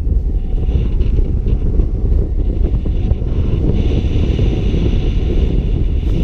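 Steady, loud wind buffeting on the microphone of a camera mounted on a paraglider in flight, rumbling in the lows.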